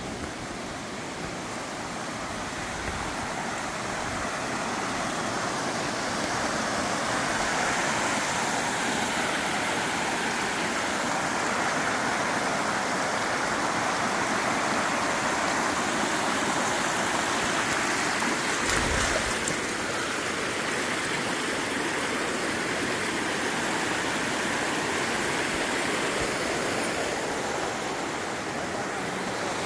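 Waterfall water rushing over rocks, a steady noise that swells over the first few seconds and then holds. A brief low bump comes a little past halfway.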